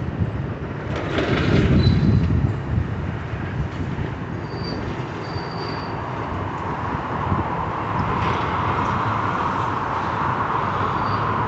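Heavy demolition machinery working on a building: a steady mechanical rumble with a louder surge a second or two in, then a steady high-pitched grinding noise that sets in about seven seconds in.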